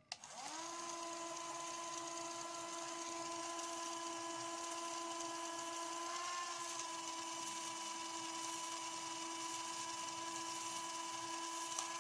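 CD Doctor disc repair machine running its cleaning cycle: a click as it starts, the motor spinning up within half a second, then a steady whine as it spins the CD against the solution-wetted cleaning pads.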